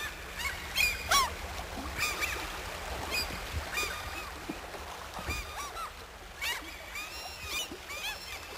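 A flock of waterbirds calling: many short calls that rise and fall in pitch, overlapping one another, over a steady low rumble.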